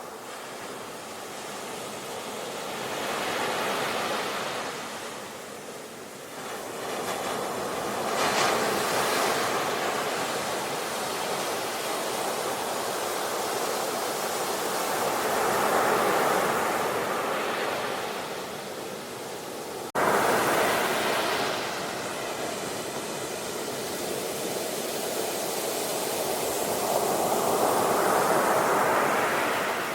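Ocean waves breaking on a shore in repeated surges, each swelling to a peak and washing back over several seconds. About two-thirds through, the level jumps up suddenly.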